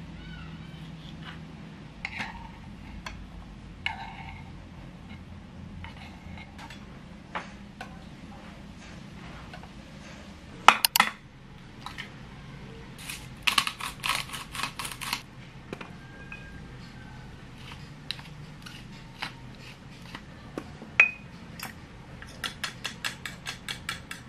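Kitchen prep sounds: a knife knocking through tomatoes on a wooden cutting board, then an egg cracked sharply against a bowl about ten seconds in, with a flurry of clicks as it is opened. Near the end the egg is beaten in the bowl, a fast even run of clinks.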